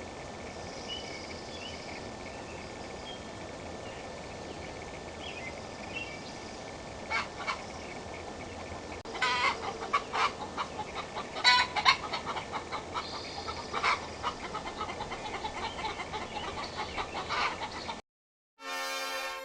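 Backyard hens clucking and squawking in quick runs of calls, loudest around the middle, over a steady outdoor hiss with faint high chirps. Near the end the sound cuts out briefly and music begins.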